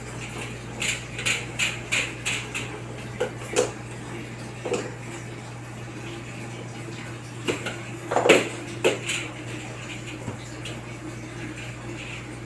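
Irregular light metallic clinks and taps from aluminum screen-door parts and tools being handled. A bunch of them comes in the first few seconds, and the loudest cluster about eight seconds in. A steady low hum runs underneath.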